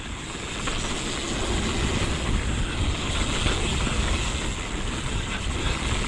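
A Santa Cruz Megatower mountain bike rolling down a dirt singletrack. Its tyres rumble over the dirt, with rushing wind noise and light rattles, and the noise grows louder in the first second or so as speed builds.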